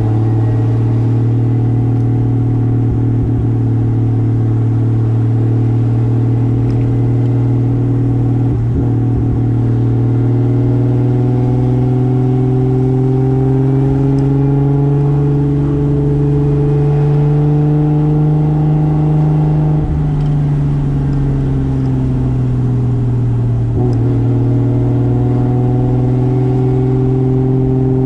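Turbocharged 2JZ straight-six in a 1995 Toyota Soarer running under way, its note slowly rising and then easing, with a few brief dips in pitch.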